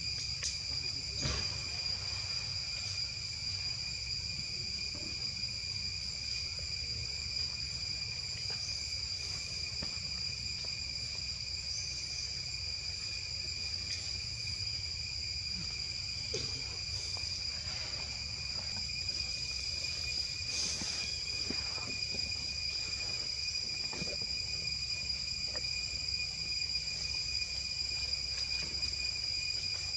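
Steady insect chorus: a continuous, unchanging high whine over a low background rumble, with a few faint ticks here and there.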